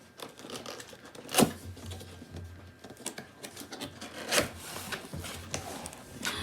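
Cardboard box and packaging rubbing and scraping as a robot vacuum is unpacked, with a sharp knock about a second and a half in and another about four and a half seconds in.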